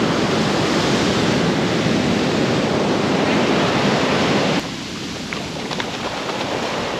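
Ocean surf breaking and washing up a sand beach, with wind buffeting the microphone. The noise drops suddenly about two-thirds of the way in to a softer wash of foam.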